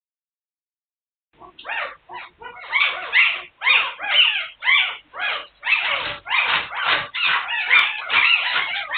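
A litter of young puppies whining and squealing: many high, wavering cries overlapping one another, starting about a second and a half in.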